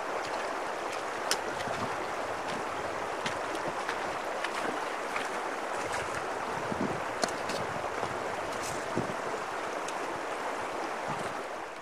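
Steady rushing of the shallow, silty Paria River's flowing water, with scattered short clicks; it fades out near the end.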